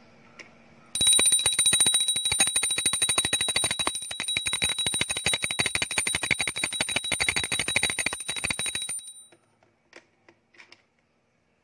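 Puja bell rung fast and without pause for about eight seconds: a quick rattle of clapper strikes over a steady high ring. It stops abruptly, and a few light knocks follow near the end.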